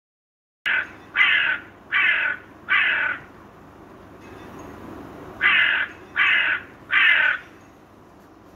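A crow cawing: harsh caws, a quick run of four, then after a pause of about two seconds another three, with a faint hiss between the calls.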